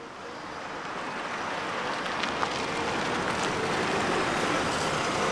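SUV driving up and pulling in, its tyres and engine a steady rush that grows louder.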